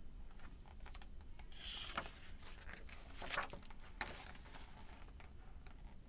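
Paper page of a picture book being turned and handled: faint rustling and light taps, loudest about three seconds in.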